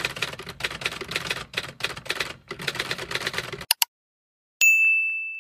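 Outro sound effects: a rapid clatter of typewriter-like keystrokes for about three and a half seconds, two sharp clicks, then a single bell ding that rings on and fades.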